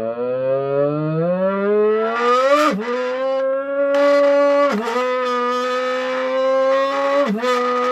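Mouth-made Formula One engine impression blown through a crushed Red Bull can: a buzzing drone that climbs steadily in pitch like an F1 car accelerating off the line, then dips briefly like a gear change about three seconds in, again near five seconds and near seven seconds, holding a steady pitch between the shifts.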